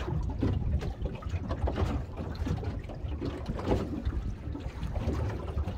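Water slapping and lapping unevenly against the hull of a small fishing boat, under a low wind rumble on the microphone.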